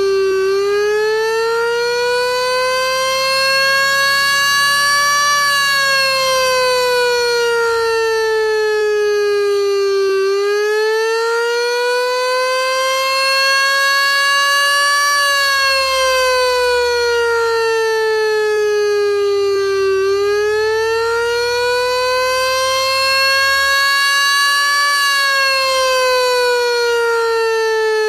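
Federal Signal STH-10 electronic outdoor warning siren sounding the attack signal: a loud electronic tone that glides smoothly up for about five seconds, then down for about five seconds, nearly three times over.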